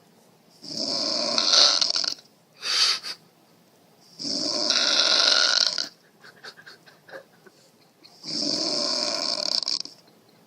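A woman snoring loudly: three long snores, each about a second and a half, coming about every four seconds, with a short extra burst just after the first one.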